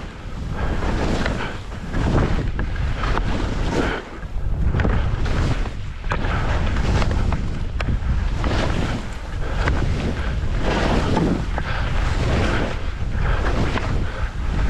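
Skis hissing through snow in a run of linked turns, the hiss swelling every second or two, with wind buffeting the microphone.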